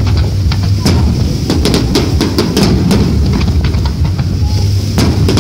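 Fireworks display: aerial shells bursting one after another in quick, irregular bangs and crackle over a continuous low rumble.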